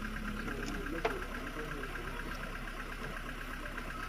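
Safari jeep's engine idling steadily, with one short sharp click about a second in.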